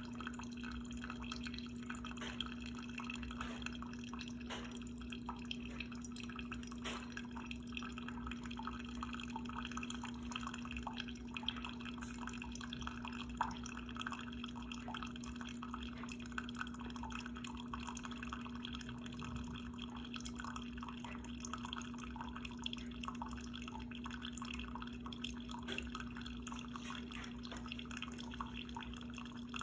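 Instant Solo single-serve coffee maker partway through a bold brew: coffee dripping and trickling into the cup over a steady low hum.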